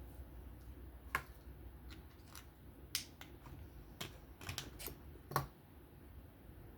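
Scattered sharp, light clicks of small metal knife parts and a driver being handled while a folding knife is taken apart at its pivot, a handful of them with gaps between.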